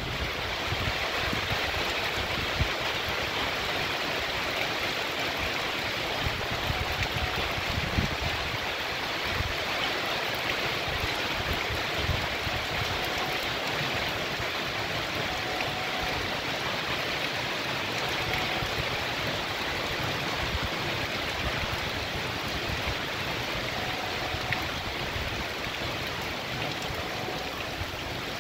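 Heavy rain pouring onto a street and trees: a steady, even hiss.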